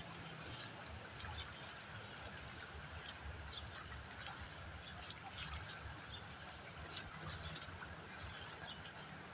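Faint, steady rush of muddy floodwater running fast through a storm-swollen creek, with short high chirps scattered throughout.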